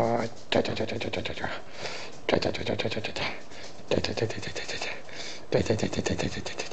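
Chihuahua puppy growling in play while it wrestles a hand: four short growls of about a second each, with brief pauses between.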